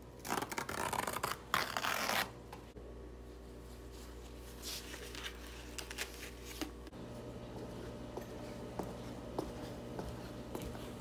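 A paper towel pulled off a stand-up roll and torn off, loud ripping in the first two seconds, followed by fainter paper rustling. Later, faint light footsteps on a hard floor.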